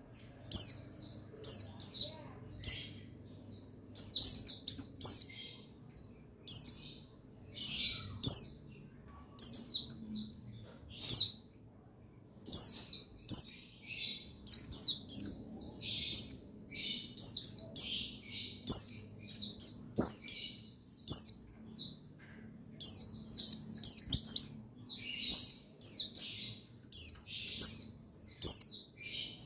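White-eyes (pleci buxtoni) calling: bursts of short, high, thin chirps that fall in pitch, repeated in quick clusters about once a second. This is a recording used to excite male white-eyes into song.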